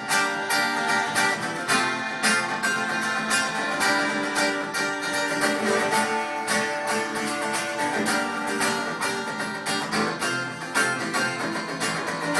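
Acoustic guitars strumming a brisk, steady rhythm: the instrumental introduction of a live band song, before the vocals come in.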